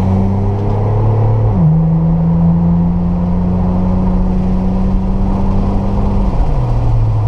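Acura 3.2 CL Type S V6 exhaust through glasspack mufflers, under load with a slowly rising pitch. The pitch drops sharply at a gear change about a second and a half in, then falls again near the end.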